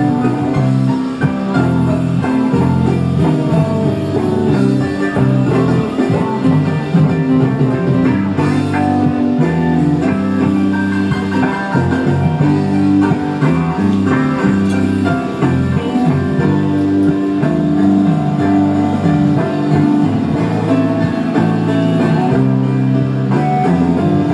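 Guitar-led blues-rock music with bass and drums.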